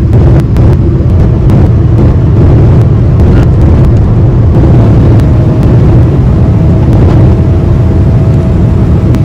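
Cabin noise of a Boeing 777-300 landing in rain: a loud, steady rumble of engines and rushing air as the airliner comes down onto the wet runway and rolls along it, flaps down. A few light rattles sound in the first few seconds, and a steady whine comes in about five seconds in.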